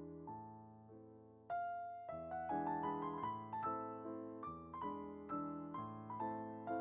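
Background music: a piano plays a gentle melody over chords, with a louder phrase coming in about a second and a half in.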